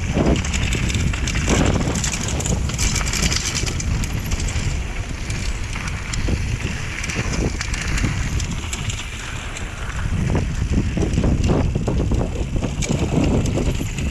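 Mountain bike descending a dry dirt trail: wind rumbles on the microphone over tyres rolling on dirt and loose stones. Short rattles and knocks come from the bike over bumps throughout.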